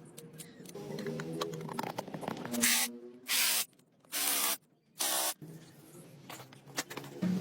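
Three short bursts of spray hissing from a nozzle, the second and third close together, each starting and stopping abruptly, as the engine is cleaned.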